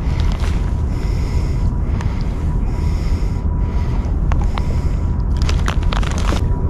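Low, uneven rumble of wind buffeting the microphone, with scattered clicks and rustles of hands handling fishing tackle, bunched together about five and a half to six and a half seconds in.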